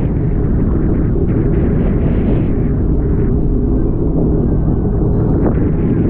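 Wind buffeting the microphone over the steady low running of a Sea-Doo personal watercraft.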